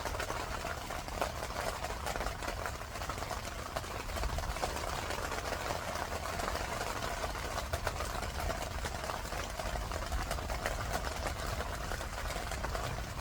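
Rain pattering densely and steadily on a tent, with a low rumble underneath.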